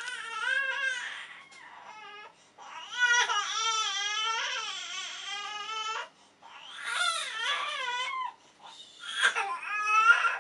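A baby crying: high, wavering wails in several bouts with short breaks between them.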